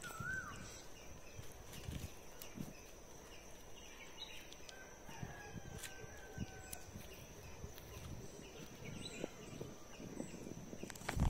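Outdoor rural ambience: scattered bird calls, one held for about two seconds in the middle, over a steady high-pitched tone, with faint rustles and knocks now and then.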